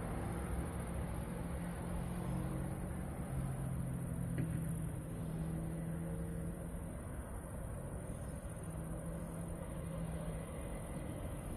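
Distant city traffic rumble at night, with a low engine-like hum that comes and goes.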